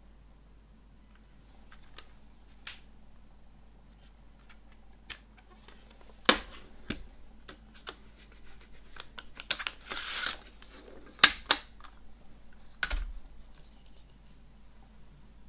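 Plastic CD jewel case being handled: a run of sharp clicks and taps, the loudest about six and eleven seconds in, with a brief scraping rustle around ten seconds in.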